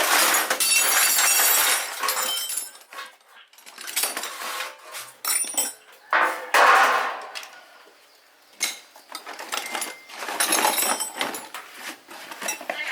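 Metallic clattering and scraping in bursts, three longer ones with sharp clinks and knocks between them: metal tools and parts being handled during repair work on the machine.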